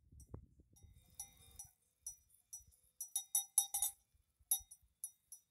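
A cowbell on a grazing cow clanking in irregular strikes, each one ringing briefly, with a quick cluster of strikes about three seconds in. A faint low rumble runs under the first second and a half.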